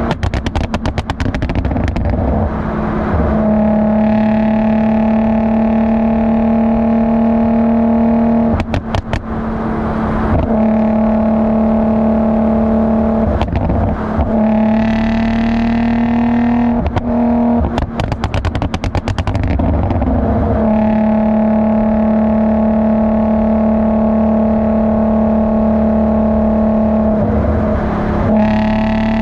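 Infiniti G35's 3.5-litre V6 heard close to the tailpipes of its Motordyne Shockwave exhaust, holding a steady droning note for several seconds at a time. About five times the note breaks into short spells of rapid crackling and popping, the overrun pops and bangs programmed by its Uprev tune.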